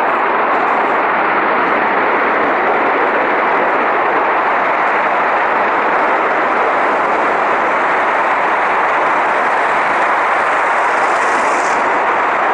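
Gas escaping from a ruptured gas pipeline and burning as a huge jet fire: a loud, steady rushing noise that holds the same level throughout.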